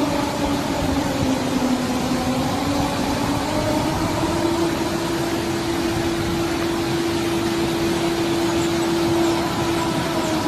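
Warning siren sounding one long, low, wavering tone: the pitch sags a little about a second in, climbs and holds steady, then drops near the end, under a heavy hiss.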